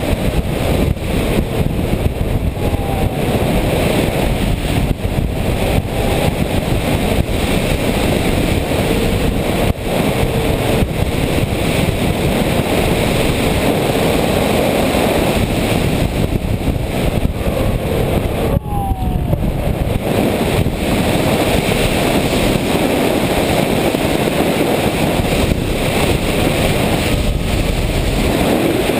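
Steady rush of wind buffeting the onboard camera microphone of an RC airplane in flight, with the faint whine of its motor and propeller sliding in pitch now and then.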